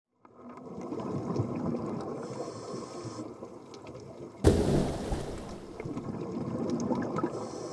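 Underwater sound effect: bubbling, gurgling water fades in from silence, a sudden loud hit comes about four and a half seconds in, and the bubbling carries on after it.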